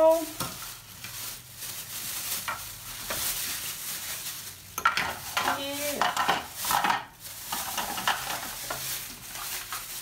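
Plastic packaging bags crinkling and rustling as they are pulled off the tower fan's base pieces, in irregular crackling bursts, with a brief pitched sound near the middle.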